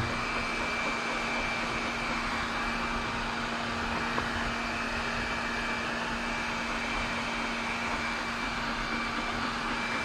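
ILIFE robot vacuum cleaner running: a steady motor whir with a thin, constant whine over a low hum.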